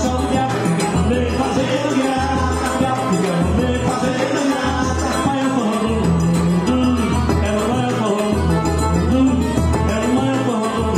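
Forró pé de serra band playing: an accordion melody over the low beat of a zabumba drum and a steady triangle.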